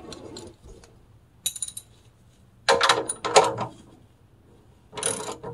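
Metal clinks and rattles from a ratchet wrench and socket being worked on a car's oil pan drain plug. They come in several short bursts, the loudest about three seconds in.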